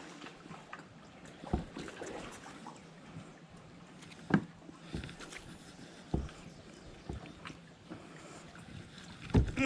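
Kayak on the water: faint water sounds with a few short, sharp knocks, the loudest near the end.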